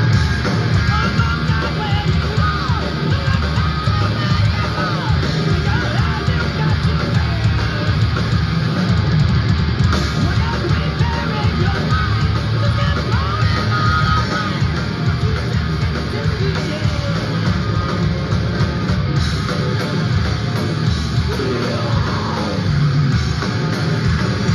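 Thrash metal band playing live: distorted electric guitars, bass and drums, loud and continuous with no breaks.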